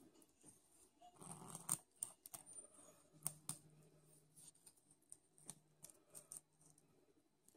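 Faint, irregular scraping and ticking of a long kitchen knife worked along a rockfish fillet's skin on a wooden cutting board.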